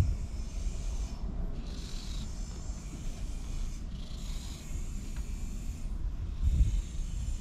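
Domestic cat purring while being stroked: a low rumble that swells and eases in slow cycles about every two to three seconds.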